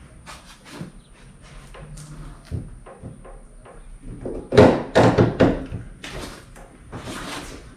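Knocks and clunks of metal hardware against a car's trunk lid as a rear wing spoiler is fitted and its bolts are started. There is a louder cluster of clunks about halfway through and a short rustling hiss near the end.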